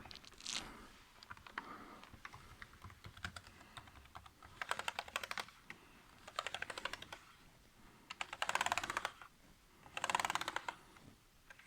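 Keys of a newly fitted ThinkPad T440p laptop keyboard clicking under the fingers: a few scattered clicks, then four quick runs of rapid key clicks about a second each, as the keys are pressed to check that none stick.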